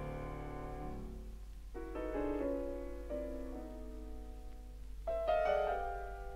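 Piano from a vinyl LP recording: a held chord dies away in the first second, then after a short gap come phrases of single notes and chords, the loudest group about five seconds in. A low steady hum runs underneath.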